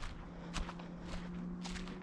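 Footsteps crunching through dry fallen autumn leaves on a woodland trail, about two steps a second. A faint steady low hum runs under the steps.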